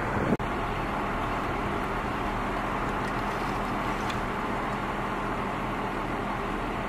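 Steady rumble and hiss of idling emergency-vehicle engines with a constant low hum, briefly cut off just after the start.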